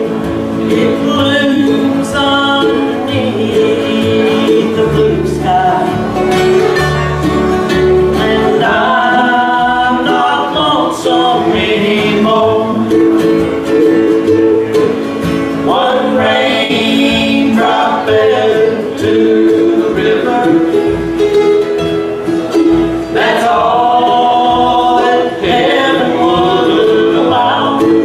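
Bluegrass band playing a song with singing, over plucked acoustic guitar and upright bass.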